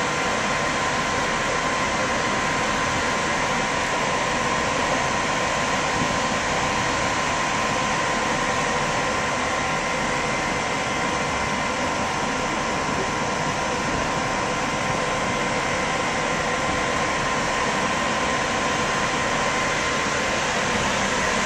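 Steady rush and hum of the cruise ship Carnival Splendor under way, heard on its open deck, with a thin steady whine over it.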